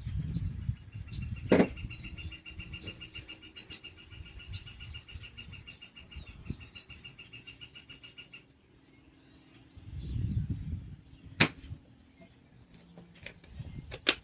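Handling of the cordless tools: bumping and rustling with two sharp clicks, about a second and a half in and again near the end. A faint, rapid, evenly repeated chirping runs through the first half and stops about eight seconds in.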